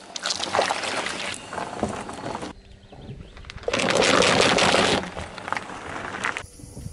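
A car tyre rolls over a block of jelly and squishes it. About four seconds in, the tyre crushes a row of upturned paper cups flat, which is the loudest sound.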